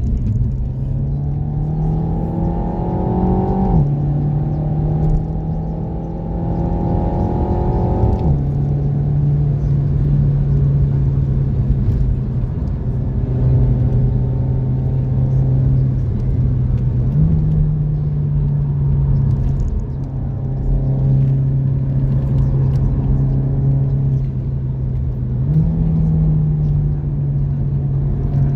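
Renault Mégane RS Trophy's turbocharged four-cylinder engine heard from inside the cabin, pulling hard through the gears. Its pitch climbs and drops at upshifts about four and eight seconds in, then holds at speed over a steady road rumble. Later the pitch steps up twice on downshifts.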